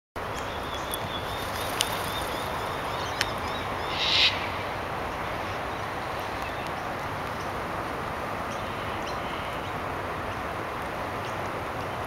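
Steady outdoor hiss with two sharp clicks, then one short harsh screech from a white cockatoo about four seconds in, the loudest sound.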